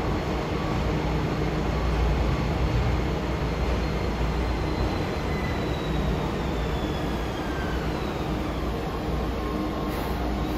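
Toei 12-600 series linear-motor subway train pulling into the platform and braking, with a steady rumble from the cars. A thin whine falls slowly in pitch as it slows.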